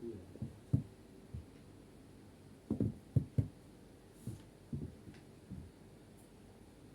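Irregular soft, low thumps and knocks, about a dozen, with a cluster of the loudest a little before the middle.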